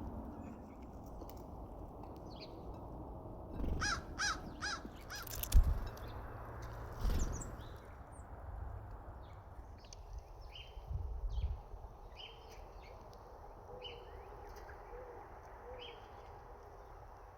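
Wild birds calling: short scattered chirps throughout, with a run of about five harsh, caw-like calls in quick succession about four seconds in. A single loud thump follows shortly after.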